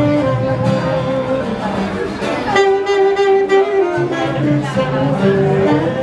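Live band music led by an amplified guitar playing a melody over a bass line; about halfway through, one long note is held while the bass drops out, then the bass comes back in.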